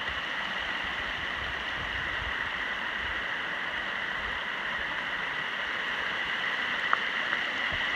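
Rainwater runoff flowing in small streams down and beside a rocky mountain trail: a steady rush of running water, the mountainside draining after heavy rain.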